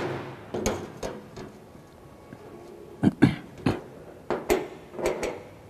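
Light knocks and scrapes of a steel ruler and marking tools being handled on a steel sheet, a handful of short sharp sounds clustered about a second in and between three and five seconds.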